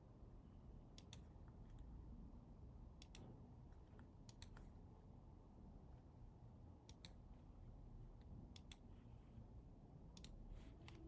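Faint computer mouse clicks, each a quick double tick of the button, about six or seven of them spaced one to two seconds apart, over low room tone.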